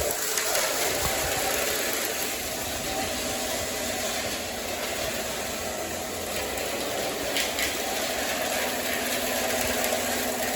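O gauge model train running steadily along the layout track, with a continuous rumble of motor and wheels.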